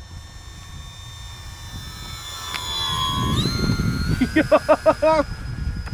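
Electric motor and propeller of a Flite Test Freedom Fox RC plane flying past slowly, a steady high whine that steps up in pitch about halfway through as the throttle is opened. Wind buffets the microphone with a low rumble throughout.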